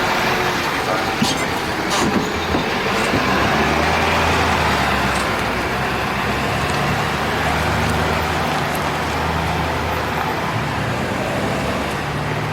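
Ambulance engine running with a steady low hum as the vehicle pulls in, over street traffic noise, with a few sharp clicks in the first couple of seconds.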